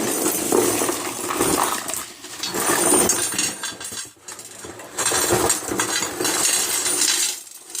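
Small loose metal parts and trinkets clattering and rattling together as they are rummaged through in a box, in several spells with short pauses.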